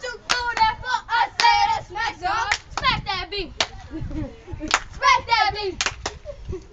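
Children playing a hand-clapping game: sharp hand claps at an uneven pace, between lines of children's voices chanting or singing a rhyme.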